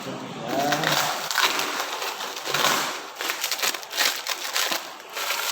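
Packaging being handled and opened: irregular crackling and crunching throughout.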